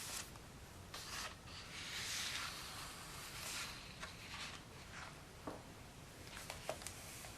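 Faint paper rustling and rubbing as picture-book pages are handled and turned, with a few soft swishes and a few light taps.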